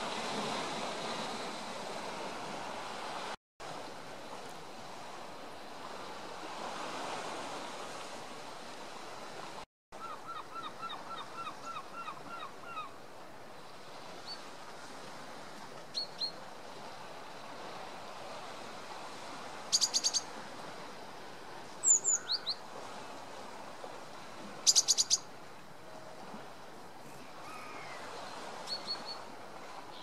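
Birds calling over a low wash of sea waves: first a quick run of about nine repeated notes, then scattered sharp high chirps through the second half, which are the loudest sounds. The audio cuts out briefly twice near the start.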